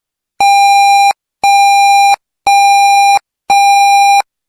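Electronic emergency-alert beeps: four identical steady-pitched electronic beeps about a second apart, each lasting under a second, starting about half a second in. The repeated beeps mark the start of an Emergency Alert System announcement.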